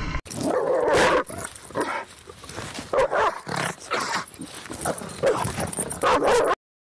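A dog making a run of short vocal sounds: irregular bursts with several louder ones spread over about six seconds, then a sudden stop.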